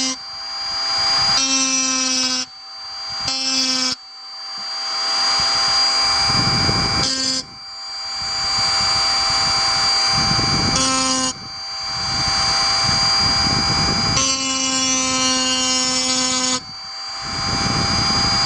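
Handheld rotary tool (Dremel-type) running at speed with a steady high whine while its ball burr engraves a metal talisman disc. The sound drops sharply and builds back up every few seconds.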